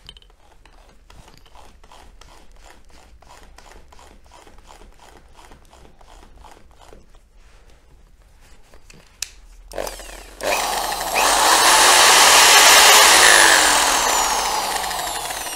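Faint, even ticking at about three a second for most of the first nine seconds, then an electric drill with a threaded wire brush on a disc adapter spins up, runs at speed and winds down, its pitch falling near the end.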